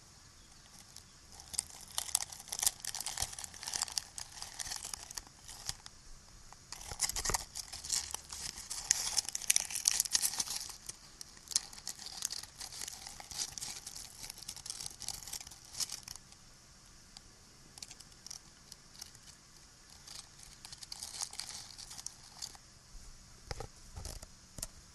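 Close-up crinkling and scratching, in irregular crackly bursts that are busiest over the first two-thirds and then thin out. A few sharp taps come near the end.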